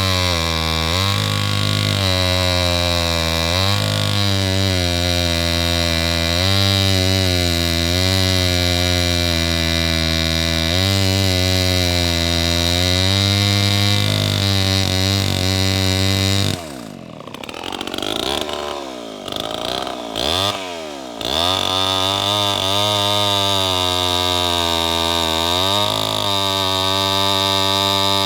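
Homelite C-91's 5.2-cubic-inch single-cylinder two-stroke chainsaw engine running steadily, its pitch rising and falling slightly. About two-thirds of the way through, the sound drops in level for a few seconds while the pitch swoops up and down, then settles back to steady running.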